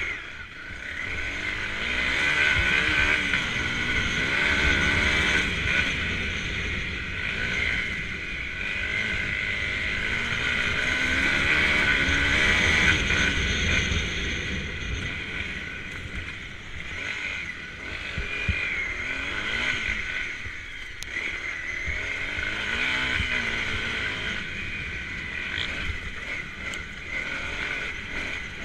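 Honda CRF250L's single-cylinder engine running under way on a gravel track, its revs rising and falling over and over as the throttle is opened and eased off.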